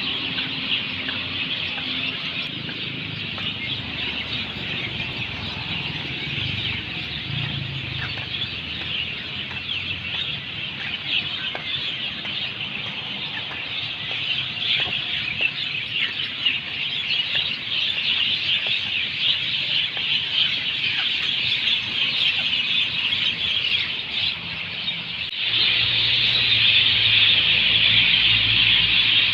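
Dense chorus of many small birds chirping at once, a continuous overlapping twitter that gets louder about 25 seconds in.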